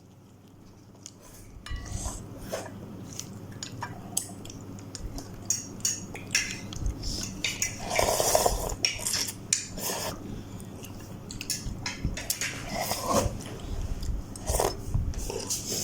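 Cutlery repeatedly clinking and scraping against a bowl while instant noodles are eaten, with a louder, busier stretch about eight seconds in.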